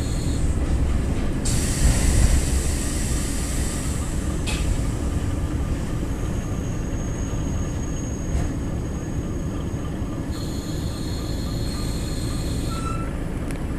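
Running noise inside a KiHa 28 diesel railcar: the steady low rumble of the DMH17H straight-eight diesel engine and the wheels on the rails. About a second and a half in, a louder hiss swells for some three seconds, and later a thin high whine is held for a few seconds.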